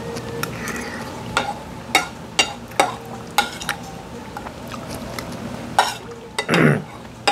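Eating utensils clinking and scraping against a bowl, half a dozen sharp knocks as the last of a bowl of noodles is eaten, over steady restaurant hum. A short falling voice sound comes near the end.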